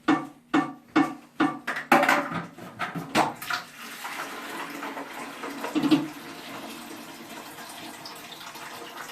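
A rapid run of short pitched squeaks, about three a second, gives way to water running steadily into a bucket as the toilet tank is drained through the fill valve hole.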